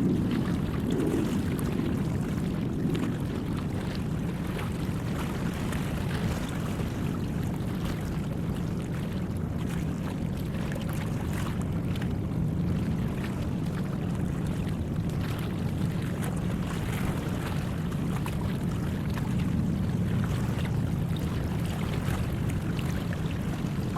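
Work boat's engine running steadily as it motors out of the harbour: a continuous low rumble, with a wash of water and wind.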